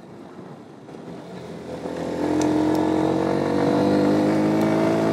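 Small motorcycle engine, low for about the first two seconds, then running louder and steadily under throttle, its pitch rising slowly.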